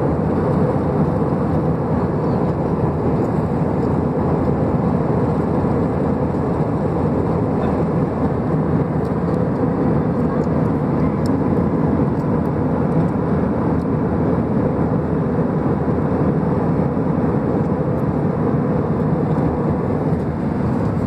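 Jet airliner cabin noise in flight, heard from a window seat: an even, unchanging rush of engine and airflow sound with a faint steady hum.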